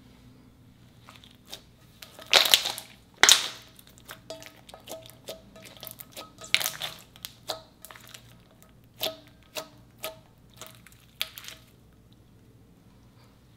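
Clear slime being pressed, pulled and stretched by hand, giving a run of sharp sticky pops and crackles. The two loudest come about two and a half and three seconds in, and the pops thin out and stop near the end.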